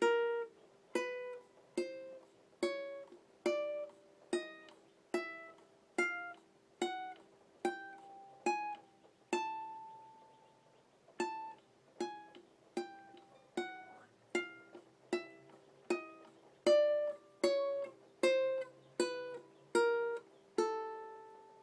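Ukulele playing an A chromatic scale one plucked note at a time, a little over one note a second. It climbs an octave, holds the top note briefly about halfway through, then steps back down to the starting A.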